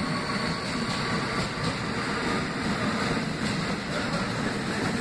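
R46 subway train running along a station platform: a steady rumble of wheels on rail that holds an even level throughout.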